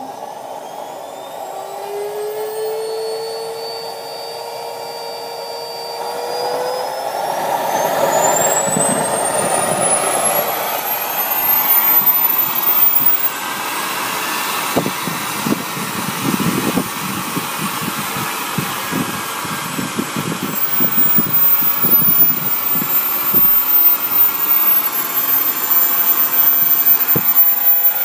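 Jetcat P20-SE model jet turbine starting up: a whine rising steeply in pitch as the rotor spools up. From about a third of the way in, an uneven, rough rumble grows underneath it, while the whine settles at a very high, steady pitch and the turbine gets louder.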